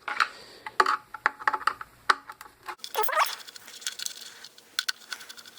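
Irregular clicks and light knocks of a Phillips screwdriver working the screws on a plastic pump housing, with a short high whine about three seconds in.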